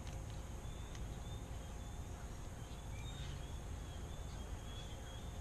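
Quiet outdoor background: a steady low rumble with faint, scattered short high chirps from small birds and a few light clicks.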